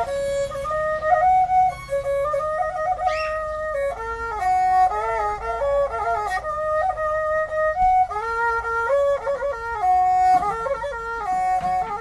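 Tro Khmer, the Cambodian spike fiddle with a coconut-shell body, playing a solo traditional melody under the bow. It moves in held notes that step up and down, with quick ornamental turns between them.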